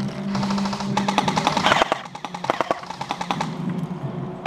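Airsoft guns firing: rapid strings of sharp shots, densest in the first half, thinning to separate single shots past the middle.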